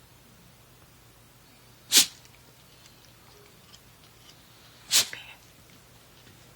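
A cat sneezing twice, two short, sharp sneezes about three seconds apart.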